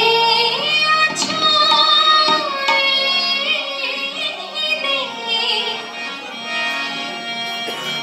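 A young woman singing a devotional song with held, wavering notes, accompanied by a harmonium drone and occasional tabla strokes.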